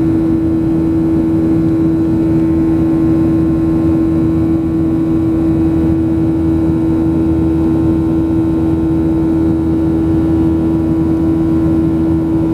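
Steady cabin drone of a Boeing 737-700 in flight, heard inside the cabin at a window seat by the wing: the CFM56-7B turbofan engines give a strong steady hum over an even rush of air noise, with no change in level.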